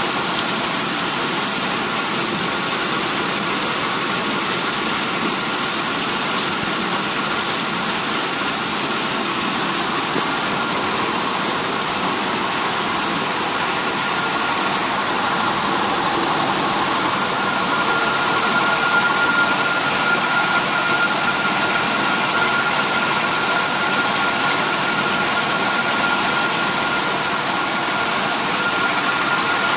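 Vibrating screen of a sand washing plant running, its vibration motors making a steady mechanical rattle and hum over a dense hiss. A high, steady whine in it grows stronger about halfway through.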